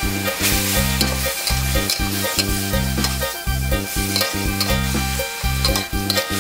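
A metal wok spatula scrapes and turns pork leg in a steel wok, several strokes a second, while the food sizzles in hot oil. Background music plays underneath.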